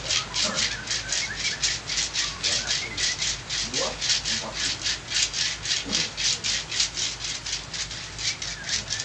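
Fast, even rubbing strokes of a massage on a patient's body, about four or five strokes a second.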